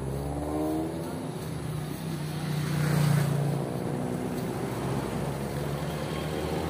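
A motor vehicle's engine passing close along the road: a low engine hum that builds to its loudest about three seconds in, then fades away.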